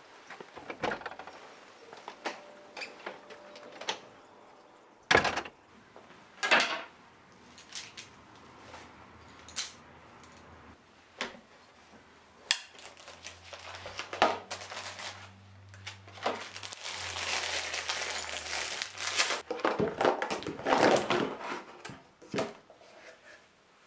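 A series of indoor handling sounds: a door handled and opened, then scattered knocks and clicks as a wooden box of rhinestones is opened. Near the end comes a longer rattling clatter as small plastic paint bottles tumble out of a cardboard box onto a denim jacket.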